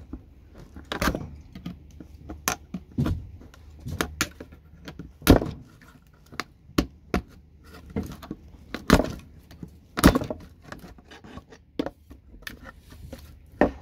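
Plastic pieces of a network patch panel being broken apart, with irregular sharp cracks and snaps, the loudest about five seconds in.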